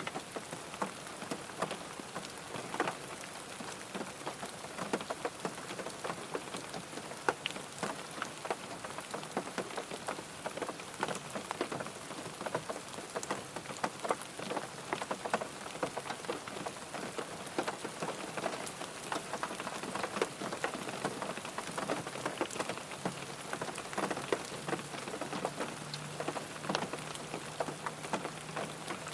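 Rain falling on a car: a steady hiss of rain with many separate drops tapping. A faint low hum comes in after about twenty seconds.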